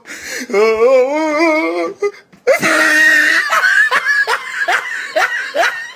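A person laughing: one long wavering laugh, a short pause, then a string of short ha-ha bursts at about three a second.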